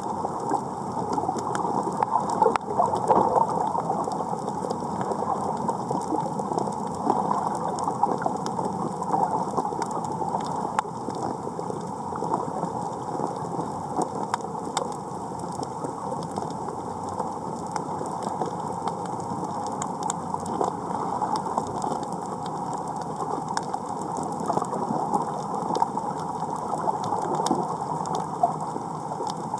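Underwater coral-reef ambience picked up through a camera housing: a dense, steady crackle of fine clicks, of the kind that snapping shrimp make on reefs.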